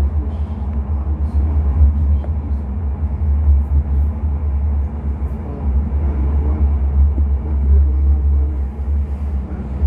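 Steady low rumble of a Sheffield Supertram tram in motion, heard from inside the passenger saloon.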